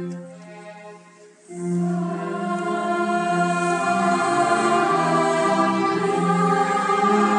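Background music: sustained choir-like voices swell in after a brief lull about a second and a half in, then hold long, slow notes.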